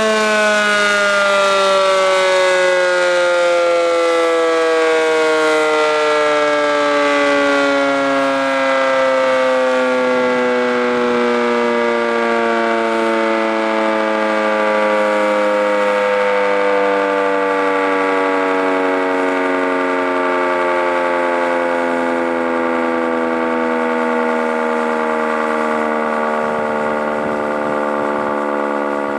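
Sentry 10V outdoor warning siren winding down: one loud, steady wail whose pitch falls slowly and continuously as the rotor coasts, getting slightly quieter toward the end.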